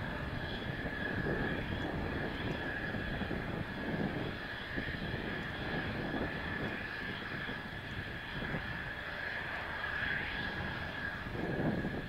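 Mitsubishi F-2 fighter's single F110 turbofan running on the ground, a steady high whine. Gusts of wind buffet the microphone underneath it.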